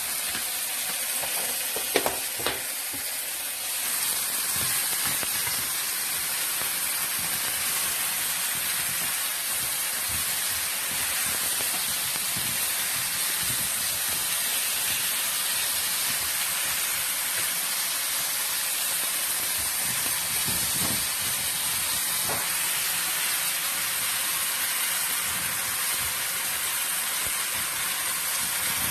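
Food sizzling steadily as it fries in a hot pan. There are a couple of sharp clicks about two seconds in, and the sizzle grows a little louder near four seconds.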